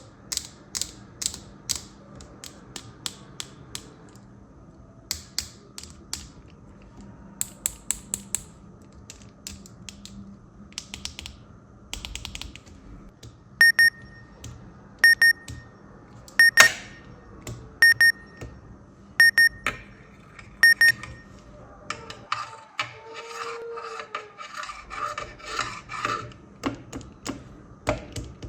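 Plastic fidget-board toys being clicked and snapped: irregular sharp clicks at first, then about eight evenly spaced clicks, each with a short high ring, one every second and a half or so. Near the end comes a busier run of clicking with a pitched tone mixed in.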